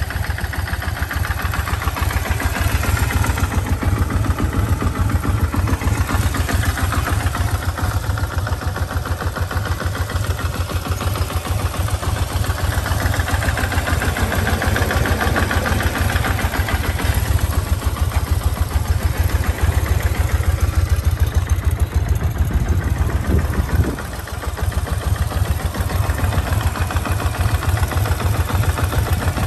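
2003 Kawasaki Vulcan 1500 Classic's liquid-cooled four-stroke V-twin idling with a steady, even beat, running well. The level dips briefly once, a few seconds before the end.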